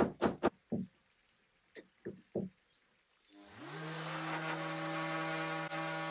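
Quick hammer taps on wood, a few scattered taps after them, and then a random orbital sander starting about three and a half seconds in, its motor rising quickly to a steady whine.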